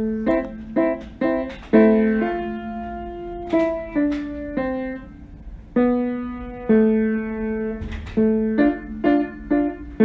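Background music: a piano plays a slow melody of single notes, some held and left to ring.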